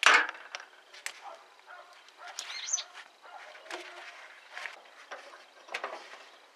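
Handling noise from a restored foot pump: small metal clicks and knocks as the air hose connector is fitted into the pump's cylinder head and the steel frame is handled, with a sharp knock right at the start and a brief high squeak about two and a half seconds in.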